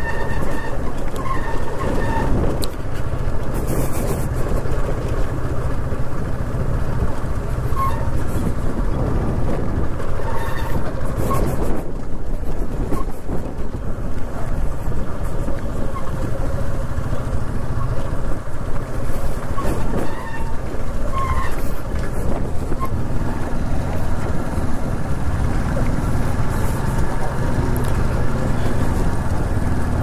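TVS Apache RTR 160's single-cylinder engine running steadily at low speed while riding over a rough, broken stone-slab dirt track, mixed with a constant road rumble.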